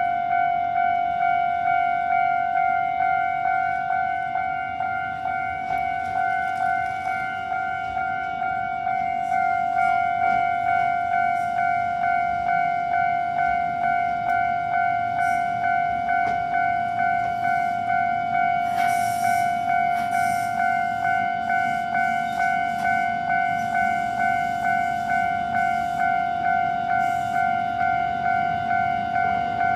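Japanese railway level-crossing alarm ringing, a steady repeating electronic 'kan-kan' of about one and a half strikes a second, signalling an approaching Iyotetsu suburban train. The train's low running rumble rises under it in the second half, with a short hiss about two-thirds of the way through.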